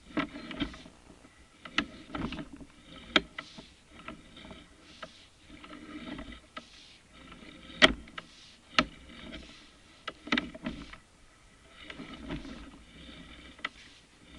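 Irregular sharp knocks, about seven, loudest a little past the middle, between bursts of scraping and shuffling, from work cleaning out a grinder pump.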